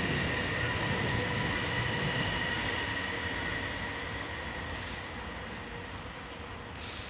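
Steady mechanical rumble with a faint high whine, slowly fading, like a passing vehicle moving away.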